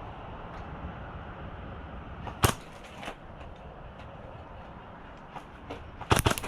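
Airsoft guns firing: a single sharp shot about two and a half seconds in, a fainter one soon after, then a quick burst of about four shots near the end, over steady outdoor background hiss.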